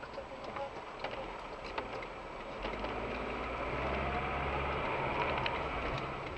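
A car's engine pulling away from a standstill, heard from inside the cabin. It grows louder about two and a half seconds in, with a rising whine as the car gathers speed, and a few light clicks.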